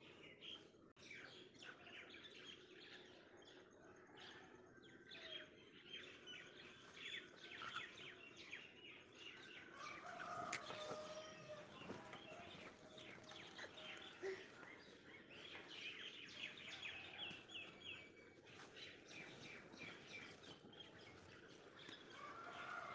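Faint chirping and twittering of small birds, with a few lower calls about halfway through and again near the end.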